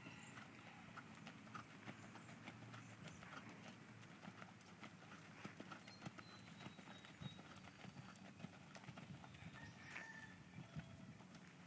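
Faint hoofbeats of a horse cantering on arena sand, soft irregular thuds throughout.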